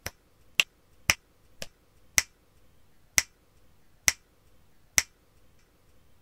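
A series of about eight sharp, snapping clicks, close together at first and then slowing to roughly one a second, the last about five seconds in.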